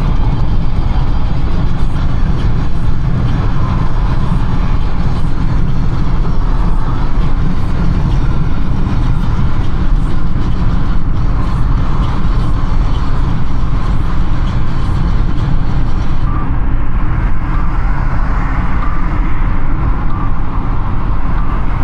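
Car driving at expressway speed: steady, loud road and tyre rumble mixed with engine noise, heard from inside the car.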